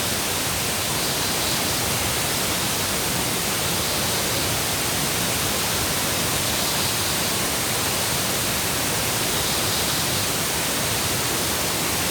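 Steady rushing of water, a constant even hiss with no breaks.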